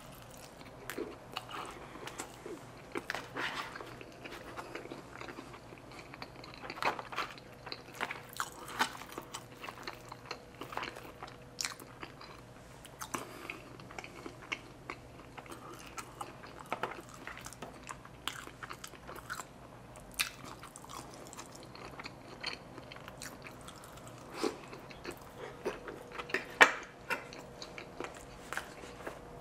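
Close-miked chewing of forkfuls of loaded carne asada fries: irregular wet smacks and sharp mouth clicks, with one sharper click near the end.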